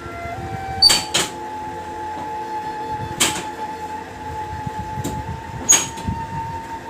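Four sharp clicks, the first two close together, during a chiropractic adjustment of the lower back. A steady hum runs underneath.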